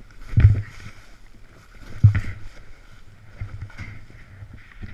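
Snowboard boots thudding and crunching in deep snow, with clothing rustling against the body-mounted camera. Two heavy thumps come about a second and a half apart, with lighter ones later.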